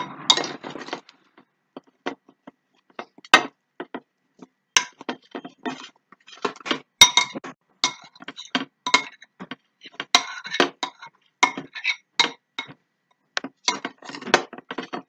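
Metal spoon clinking and scraping against a glass mixing bowl while stirring a thick, fluffy slime mixture, in irregular clinks with short pauses.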